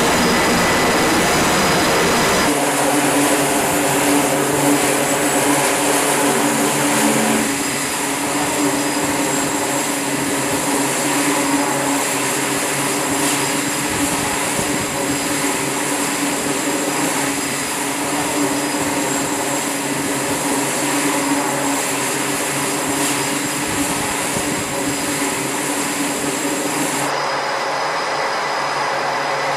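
Jet aircraft engines running on an aircraft carrier's flight deck: a loud, steady rush with a high whine. The sound shifts abruptly a couple of times, losing its low end about two seconds in and its highest whine near the end.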